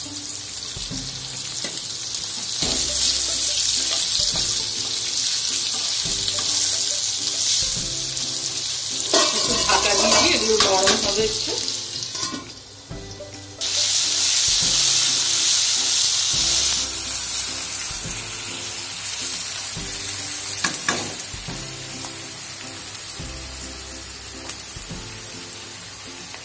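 Sliced carrot, capsicum and onion sizzling in hot oil in a non-stick wok while being stirred with a spatula. The sizzle grows louder a couple of seconds in, with livelier stirring clatter around ten seconds. It drops away briefly just past twelve seconds, comes back, then settles to a softer sizzle for the last ten seconds.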